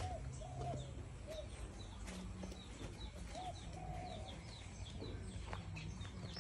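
Birds chirping in a morning chorus: many short, high, falling chirps repeating throughout, with a few lower, drawn-out notes mixed in.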